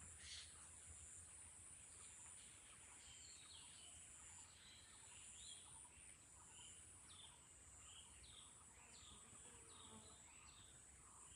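Faint nature ambience: a steady high-pitched insect drone, with many short chirping bird calls scattered over it from about two seconds in.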